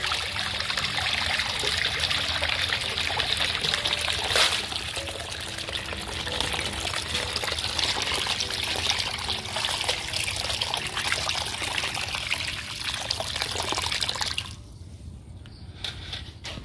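Water running steadily into a basin of grated coconut as it is rinsed to clear the cloudy water; the flow cuts off about fourteen and a half seconds in, leaving quieter dribbles and splashes.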